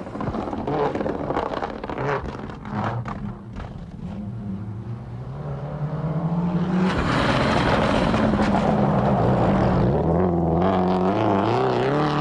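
Subaru Impreza rally car's turbocharged flat-four engine driven hard on a gravel stage, its revs climbing and then rising and falling through gear changes. About halfway through, a loud rush of tyres and thrown gravel joins it as the car passes close.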